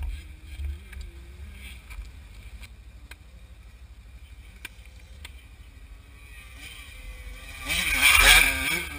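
A dirt bike's engine is heard faintly at first over a low wind rumble on the microphone. About eight seconds in the bike comes past close and loud, its engine revving up and down as it jumps over the rocky trail.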